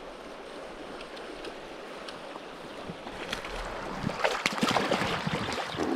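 River water flowing steadily, with a run of sharp splashes starting about four seconds in.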